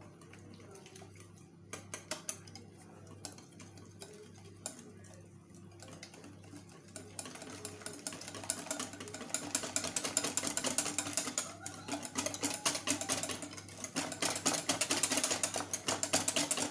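Wire balloon whisk beating a runny egg-and-flour batter in a glass bowl. The wires tick against the glass, at first sparse and quiet, then from about halfway on fast, steady and louder.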